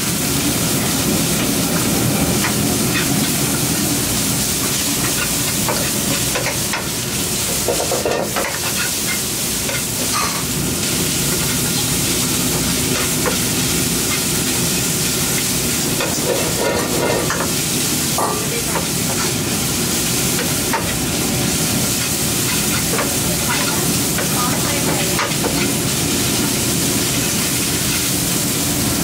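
Noodles with egg and onion sizzling in a hot wok while a metal ladle stirs and tosses them, scraping and knocking against the pan now and then, over the steady roar of a gas wok burner.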